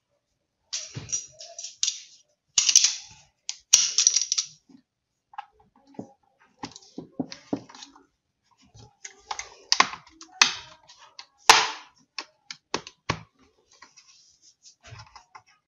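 Plastic top case of an ASUS X553M laptop being pried at its edge: irregular clicks, small snaps and short scraping rasps as the tool works under the plastic and its clips, with a few louder snaps.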